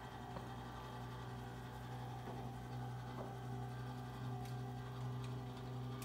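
Electric lift mechanism of a pop-up cabinet running with a steady low hum as it lowers a coffee machine down into the cabinet.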